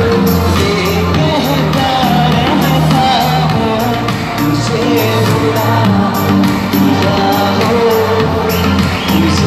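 Loud live music with vocals over a steady beat, played through a concert PA system and heard from within the audience.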